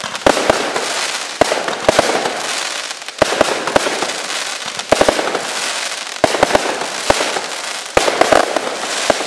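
Tank Buster 100-shot single-ignition firework cake firing: sharp bangs about two a second, often in quick pairs or triples, over a continuous rushing noise as the shots launch and burst.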